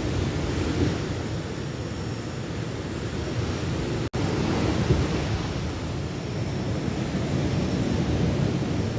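Ocean surf washing onto the beach, a steady low rumble mixed with wind on the microphone, broken by a split-second dropout about four seconds in.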